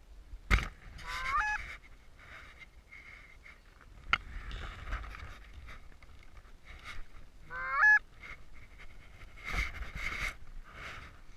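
Goose honks: a few rising honks spaced several seconds apart, with rough, cackling clucks near the end and a couple of sharp clicks.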